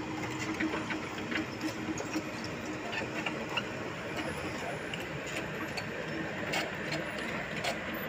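Loaded Isuzu Elf dump truck's diesel engine running steadily as the truck crawls through mud, with scattered sharp clicks over it.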